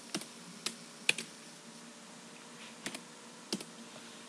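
Computer keyboard keystrokes: a few separate key presses, some in quick pairs, with pauses of up to a couple of seconds between them, as a short entry is typed into a web form.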